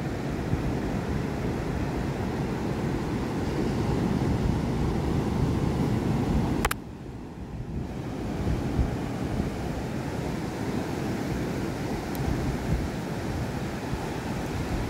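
Ocean surf breaking and washing up the beach, with wind buffeting the microphone: a steady rush. A sharp click about halfway through, after which the rush is quieter.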